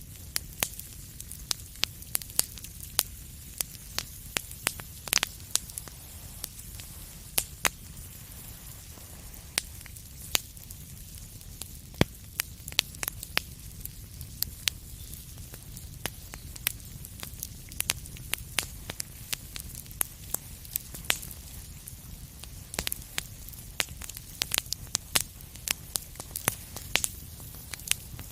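Wood fire crackling in a fireplace: irregular sharp pops and snaps over a steady low rumble and hiss, with one especially loud pop about halfway through.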